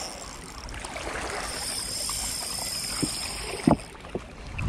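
Wind and water noise on a body-worn action camera's microphone, with a steady high whine through the middle and a few handling knocks, a sharp one about three and a half seconds in.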